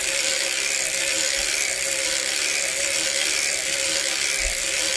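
Erlbacher Gearhart Speedster circular sock knitting machine being cranked steadily round, a continuous rapid ratcheting clatter of its needles working through the cams.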